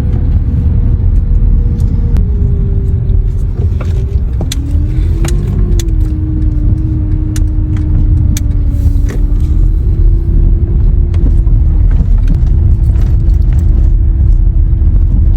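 A vehicle engine running with a heavy, steady low rumble. Its tone steps down in pitch twice in the first few seconds and then wavers, with a few sharp clicks over it.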